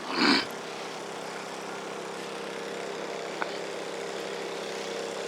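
An engine running steadily, a low even drone with a few fixed tones, after a brief louder rush of noise right at the start.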